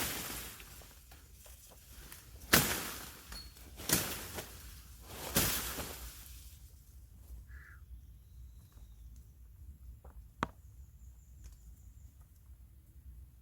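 Three chopping blows hacking into a plant stem, about a second and a half apart, followed later by a single short, sharp knock.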